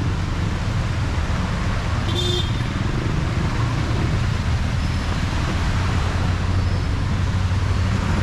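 Steady city street traffic noise, a low rumble of passing motor vehicles, with a brief high-pitched sound about two seconds in.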